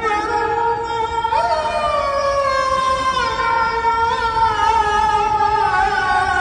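A man's voice chanting the ezan, the Islamic call to prayer, in the Hicaz maqam, sung into a microphone. One long drawn-out phrase: a new note about a second and a half in, then the pitch steps slowly down, with ornamented turns around four seconds in.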